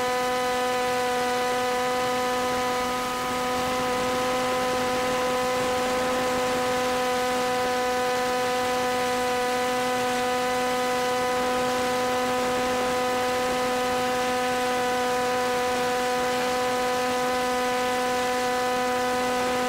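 A steady electrical hum-buzz on one unchanging pitch, with static hiss, starting and stopping abruptly.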